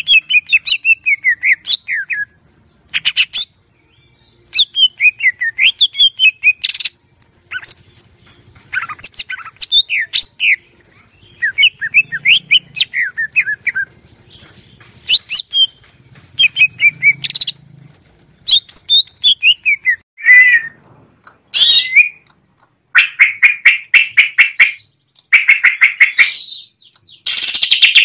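Green leafbird (cucak ijo) singing a varied, full song: quick phrases of sliding whistled notes, each lasting a second or two with short pauses between. From about two-thirds of the way in, the phrases give way to fast, buzzy rattling trills.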